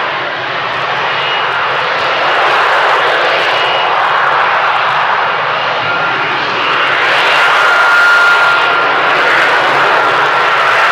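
F-35B's F135 jet engine and lift fan running at high power while it hovers: a loud, steady jet roar with a thin high whine over it that becomes clearer about six seconds in.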